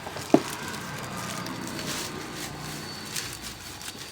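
Keyboard packaging being pulled at and handled: one sharp knock about a third of a second in, then low rustling of the box and wrapping.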